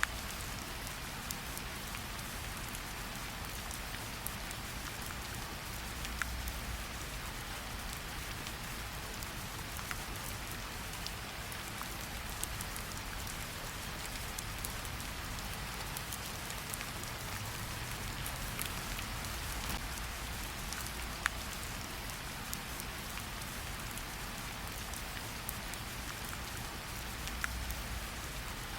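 Steady rain falling, a constant hiss with scattered individual drop ticks and a faint low rumble underneath.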